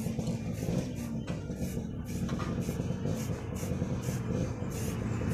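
Aerosol spray-paint can hissing in short repeated bursts over a steady low hum.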